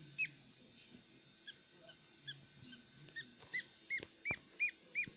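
Newly hatched duckling peeping: short arched cheeps, softer and spaced out at first, then louder and quicker in the second half at about three a second. A single sharp knock comes about four seconds in.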